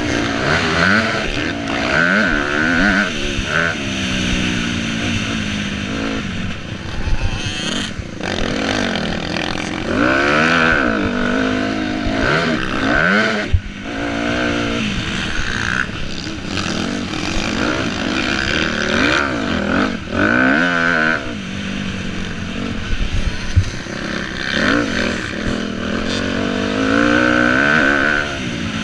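Motocross dirt bike engine heard close up while riding, its pitch repeatedly climbing under throttle and dropping back as the rider shifts and brakes, with a few short knocks.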